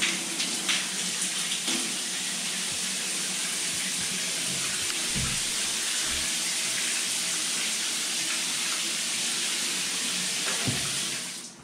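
Water spraying steadily from a Grohe Euphoria SmartControl overhead rain shower head and falling onto the tiled shower area, with a few splashy ticks in the first couple of seconds as a hand passes through the spray. The water sound cuts off suddenly near the end.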